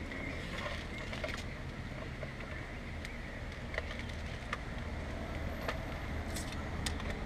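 Scattered faint clicks and knocks at irregular moments as an electric airsoft AK-47 is handled, over a steady low background hum.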